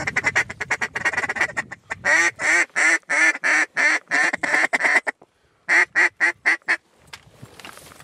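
Mallard duck call blown close by in hen quacks: a fast run of short notes for about two seconds, then a string of quacks at about four a second, a brief pause, and a shorter run of about six more.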